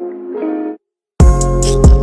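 Intro background music: a soft, sustained instrumental passage cuts off about three-quarters of a second in. After a brief silence, a loud beat with heavy kick drum hits and sharp high percussion comes in.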